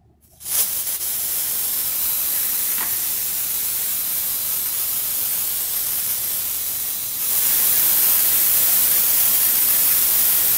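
Aerosol can of Corrosion X HD spraying through its thin red extension straw in one long continuous hiss onto a pile of screws, starting about half a second in and getting louder about seven seconds in.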